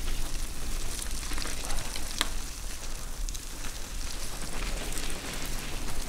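Bicycle tyres rolling over a wet, muddy dirt track: a steady crackling hiss with scattered clicks and ticks.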